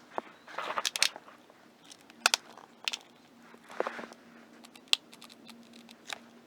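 Rubber spark plug boots being pulled off the old ignition coil's wires and worked onto the new coil's wires by hand. It gives a series of sharp clicks and short rubbing scrapes at irregular moments.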